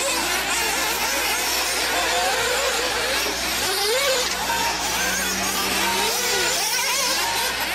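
Radio-controlled off-road buggies racing on a dirt track, several motors rising and falling in pitch over and over as the cars speed up and slow down.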